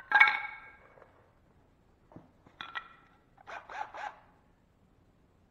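Short pine wood strips knocking together as they are handled: sharp, ringing wooden clacks, loudest right at the start, then a few softer clacks a couple of seconds later.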